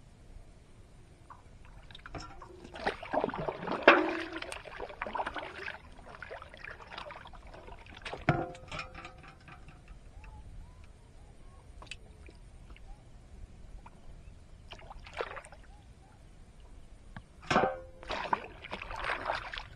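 Water splashing and sloshing against the side of a wooden boat as hands pull a monofilament gill net through the water, in several separate bursts. Near the end comes a louder splash as a steel plate is dipped into the water.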